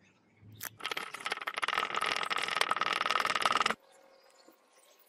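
A stick rapidly stirring a thick dark mixture in a cut-down plastic bottle, scraping and rattling against the plastic sides. It starts about a second in and stops abruptly after about three seconds.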